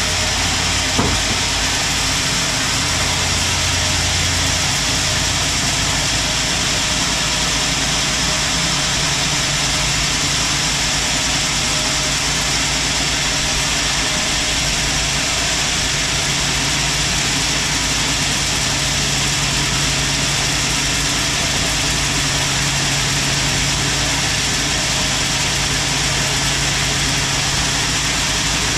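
Sawmill machinery running steadily: a constant motor hum under a high, even hiss, with one sharp knock about a second in.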